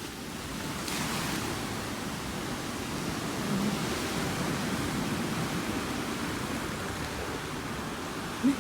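Steady rushing noise of ocean surf at the beach.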